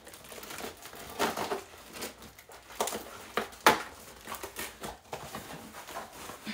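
Cardboard box and plastic packaging being handled and opened: irregular rustling and crinkling, with a few sharper crackles near the middle.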